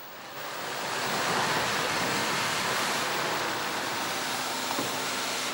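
Bavarian S 3/6 express steam locomotive venting steam with a steady loud hiss, swelling up in the first half second and then holding even.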